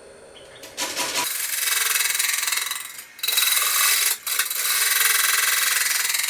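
Turning tool cutting into a spinning cottonwood platter on a wood lathe: a loud, rough scraping hiss of the cut, broken twice by short pauses, about three and four seconds in. The wood is tearing out on this side of the cut.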